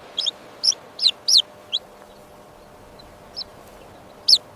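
Baby chick peeping loudly in distress, the cry of a chick that is lost and alone: a quick run of five high, falling peeps, a pause with one faint peep, then the peeping starts again near the end.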